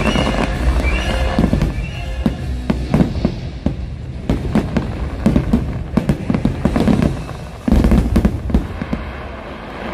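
Aerial fireworks shells bursting in rapid succession over the show's music soundtrack. About eight seconds in comes a sudden, louder cluster of bursts.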